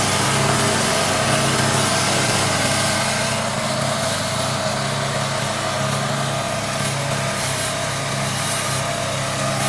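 Engine of a Trâu Vàng self-propelled grass-cutting machine running steadily, a little quieter through the middle.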